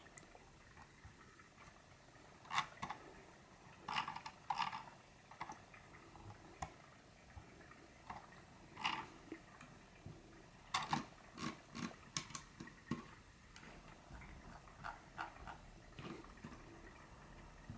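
Computer mouse scroll wheel and buttons ticking and clicking in short irregular bursts, with single sharp clicks between them.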